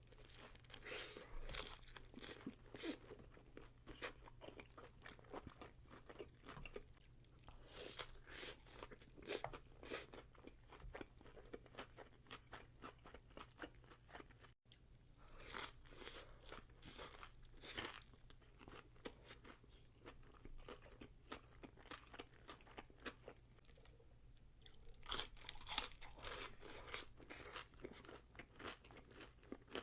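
Close-miked eating of crispy fried boneless chicken: crunchy bites and chewing in bursts, with quieter pauses between them.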